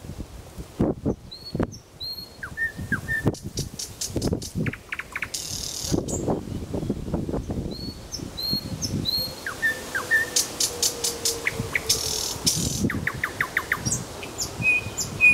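Thrush nightingale singing: varied phrases of rapid repeated clicks, short rising whistles and fast trills, one phrase after another.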